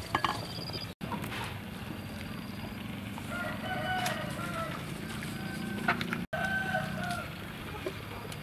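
A rooster crowing twice, each crow a second or so long. A few light metal clinks near the start, the ladle against the pot.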